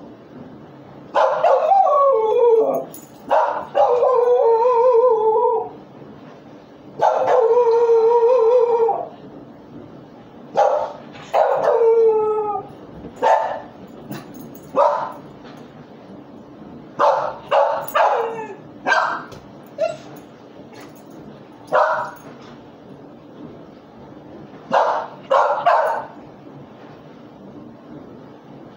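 A dog howling and whining. There are three long, wavering howls in the first nine seconds, then shorter calls every second or two.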